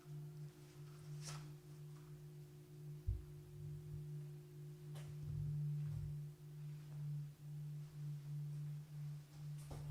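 A steady low electronic hum with a fainter higher tone above it, swelling and dipping in level, with a few faint clicks.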